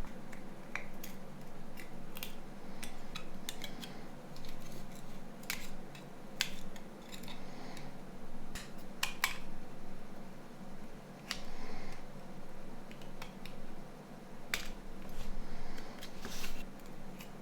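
Irregular small clicks, snaps and short scrapes of plastic and metal parts of a Nokia C3-00 phone being pried apart and handled during disassembly, over a faint steady hum.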